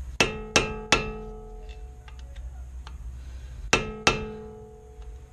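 Hammer blows on a screwdriver used as a chisel, staking the new CV axle nut's lip into the channel in the axle shaft. There are five sharp metallic strikes, each ringing on: three in quick succession, then two more about three seconds later.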